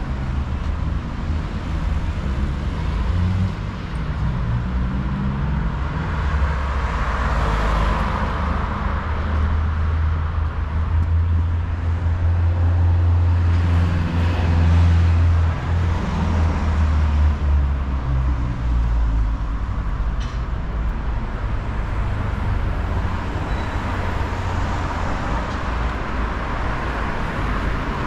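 Street traffic on a city boulevard: cars driving past with a continuous low engine rumble and tyre noise, swelling several times as vehicles go by.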